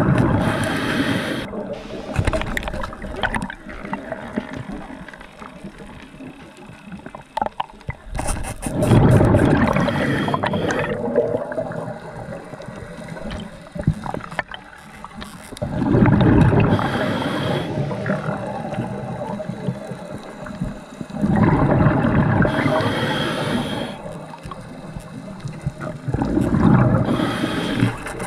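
Scuba diver breathing underwater through a regulator: five bursts of exhaust bubbles about every five to six seconds, with quieter inhales between and a faint steady hum underneath.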